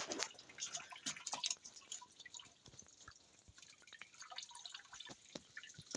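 Faint, irregular drips and trickles of water from a small garden waterfall.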